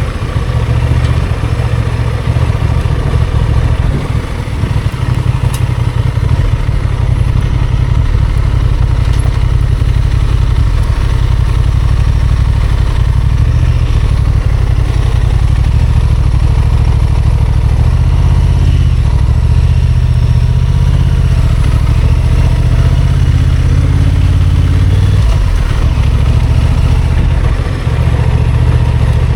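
Honda XL750 Transalp's parallel-twin engine running at low revs, its pitch shifting a little now and then as the throttle changes, with a brief dip in level near the end.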